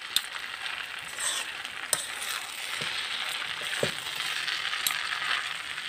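A fork scraping and clinking against an aluminium kadai as stir-fried noodles are tossed, with a few sharp clinks over a steady hiss.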